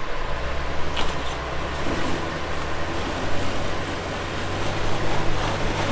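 Nissan Xterra's engine running at low revs as the SUV crawls up bare rock: a steady low hum under a constant hiss.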